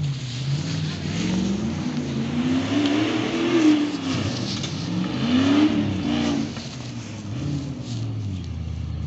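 Off-road vehicle's engine revving hard again and again while it claws through a muddy gully and up a slope, its pitch climbing and falling, with two highest revs around the middle of the clip.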